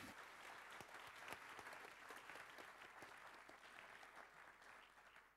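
Audience applauding, heard faintly, the clapping dying away toward the end.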